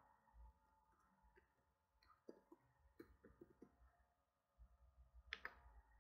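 Faint computer keyboard typing, heard as scattered soft key clicks close to silence, with a couple of sharper clicks near the end.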